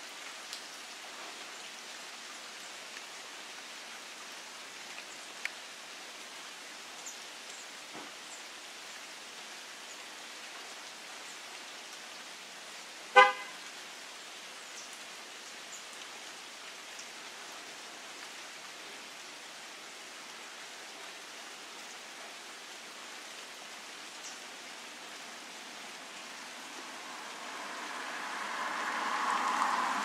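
Steady outdoor hiss with one short car-horn toot about thirteen seconds in. A rushing noise builds over the last few seconds.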